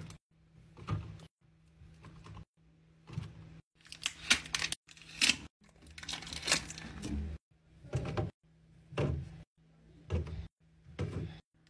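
Drink cartons and small plastic bottles being handled and set down on a fridge shelf: short taps, knocks and plastic rustles, in brief bursts with abrupt cuts between them.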